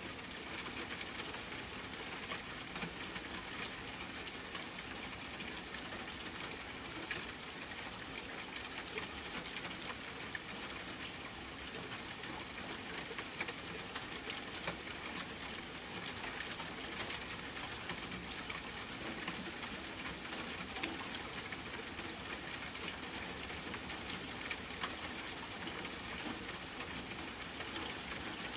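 Steady rain: an even hiss with many sharp drop hits scattered through it.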